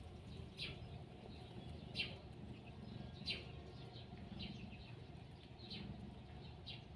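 A run of about six short, high chirps, each falling in pitch, roughly one a second, over a steady low hum.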